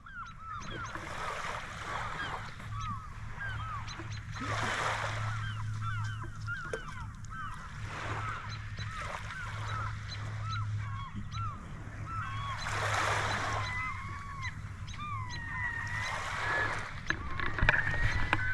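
A flock of seagulls calling over one another in short, repeated squawks. Waves wash onto a rocky shore in surges every few seconds. A low steady hum sits underneath for the first half.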